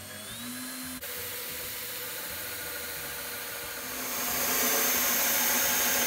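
Cordless drill running a 1-inch bit, boring into the wooden edge of a door to make the deadbolt's bolt hole. The steady cutting noise gets louder about four seconds in as the bit bites deeper.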